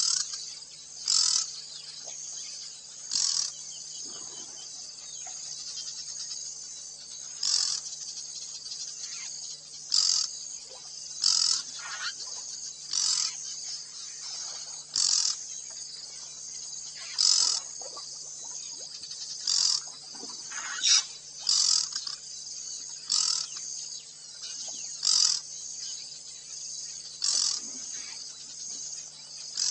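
Insects chirring steadily and high-pitched, with a louder chirp repeating every one to two seconds, over a faint steady low hum.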